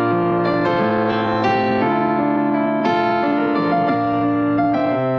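Piano music: held chords with a simple melody moving from note to note.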